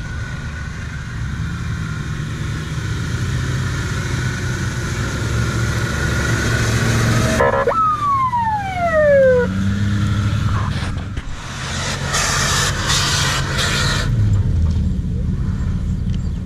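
Engines of 4x4 off-road vehicles running as they drive a dirt track. About halfway through, a single tone falls steadily in pitch for about two seconds, the loudest sound here, and a rush of noise follows for about two seconds.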